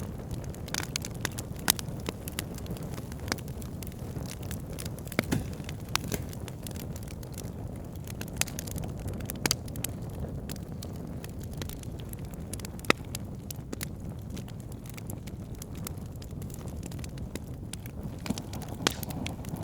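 Wood fire burning in a fireplace: a steady low rush of flames with irregular sharp crackles and pops.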